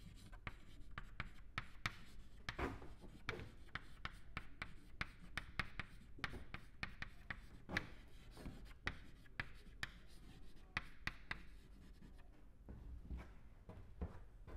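Chalk writing on a chalkboard: a quick run of light taps and scratches as words are written, thinning out near the end.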